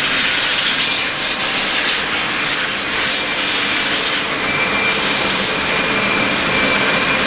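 Handheld power tool running steadily as it cuts a wire channel down into an ICF wall's foam, with a faint whine joining about halfway through.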